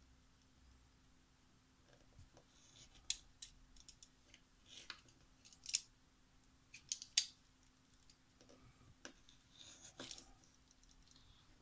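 A craft knife's blade slicing through a soft rubber eraser, trimming away its edge: irregular short, crisp clicks and scrapes, spaced from a fraction of a second to about a second apart.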